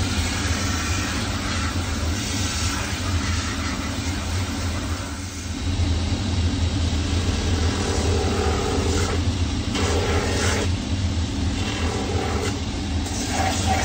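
Cobbler's finishing machine running with a steady hum, its spinning sanding wheels scuffing leather as a leather sole sheet and then the bottom of a boot are pressed against them to rough the surfaces for cement. The sound dips briefly about five seconds in, as the work changes from the sheet to the boot.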